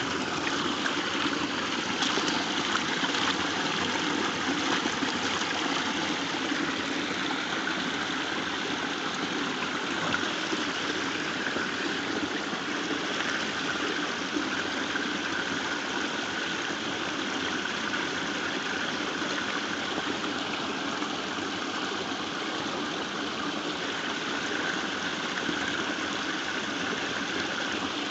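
Small waterfall and stream water rushing steadily.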